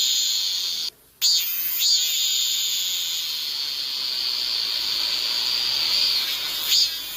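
Cicadas singing: a high pulsing call that merges into one long, steady, high buzz from about two to six seconds in, then breaks back into pulses near the end. The sound cuts out completely for a moment about a second in.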